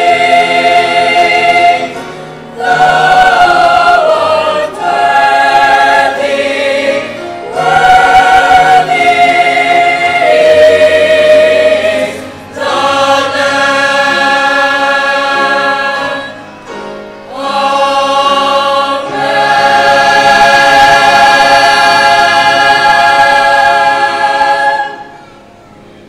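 A mixed choir of men's and women's voices singing a slow sacred song in phrases of long held chords with short breaks between them, ending on a final sustained chord that cuts off about a second before the end.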